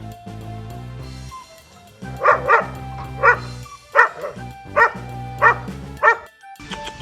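A dog barking about seven times, starting about two seconds in, over background music.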